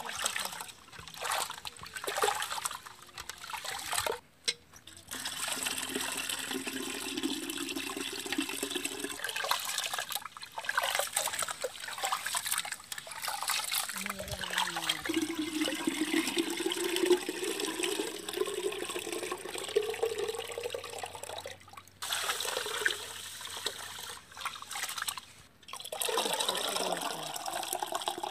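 Water pouring into a metal pot, with a hollow tone that rises slowly as the pot fills. Near the start there are short splashes of a hand swishing rice in water in a steel bowl. Near the end the rice-washing water is poured off through the fingers into the pot.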